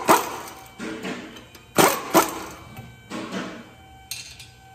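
Impact wrench on a car's wheel lug nuts, run in three short bursts: one at the start and two close together about two seconds in.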